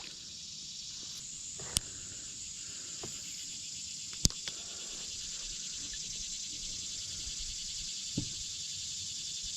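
A steady, shrill chorus of insects. Two sharp clicks sound about two and four seconds in, and a soft knock comes near the end.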